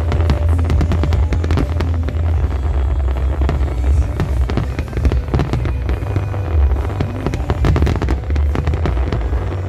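Aerial fireworks shells bursting in quick succession: a dense run of sharp bangs and crackles over a constant deep rumble.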